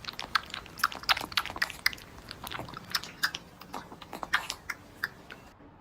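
A dog licking and chewing at food it has been offered: a run of irregular wet smacks and clicks, several a second.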